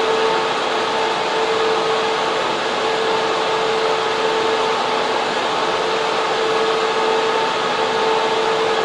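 Server room air cooling and server fans running: a loud, even rushing noise with a steady whine held on one pitch throughout.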